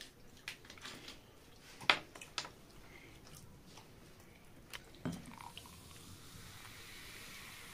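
A few light clicks and taps, then carbonated soda poured from a plastic bottle into a glass: a steady fizzing hiss that builds from about five seconds in.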